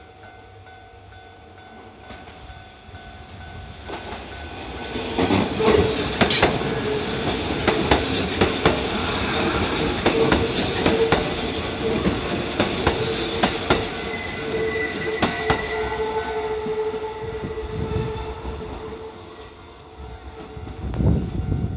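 Kintetsu 8000 series electric commuter train passing over a level crossing. It builds up from about four seconds in, its wheels clacking over the rail joints, then fades away after about fourteen seconds. The crossing's warning bell rings steadily throughout.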